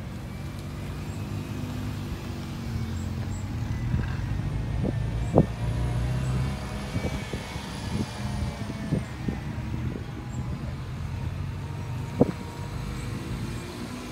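A car engine running steadily, growing louder over the first five seconds or so and then easing off. Two sharp knocks stand out, one about five seconds in and one about twelve seconds in.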